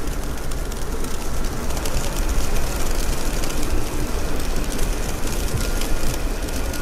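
Wind buffeting the microphone in a snowstorm: a steady low rumble with a fine, rapid crackle over it.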